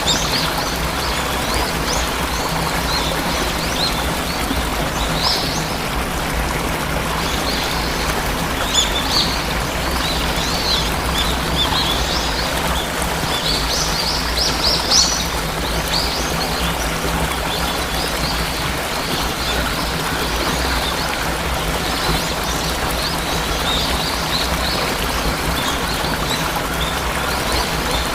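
Waterfall's steady rush of water, with many small birds chirping over it in quick, high bursts.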